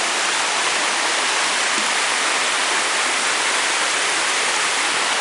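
Rushing mountain water running over rocks, a steady, loud, even rush with no change.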